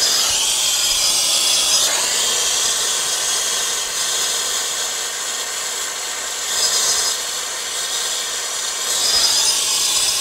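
Air-acetylene torch with a size 5 tip burning steadily with a loud hiss and a thin, high whistle, its flame heating an aluminum evaporator coil for a solder repair.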